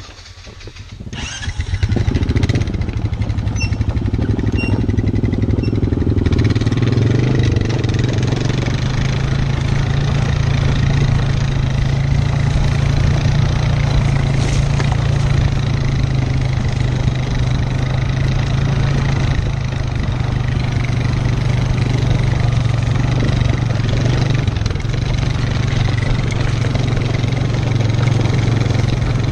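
Four-wheeler's engine picks up about a second and a half in, then runs steadily under load as the ATV tows a dead dirt bike on a strap.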